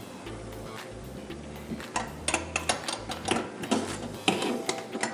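Metal clinking and rattling as the stainless-steel mesh rotisserie basket is worked loose from its mounts inside an air fryer oven. It is a quick series of sharp clicks starting about two seconds in.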